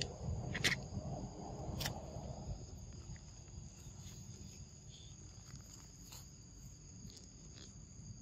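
Insects droning steadily in two high, even tones over the forest floor. Dry leaf litter rustles, with a few sharp crackles, for the first two and a half seconds or so, then the rustling dies down.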